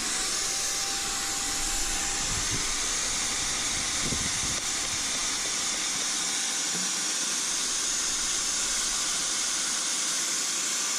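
Shop vac running in blow mode, pushing air into an aircraft engine's exhaust system to pressure-test it for leaks: a steady high hiss. A faint whine rises at the start and fades after about two seconds.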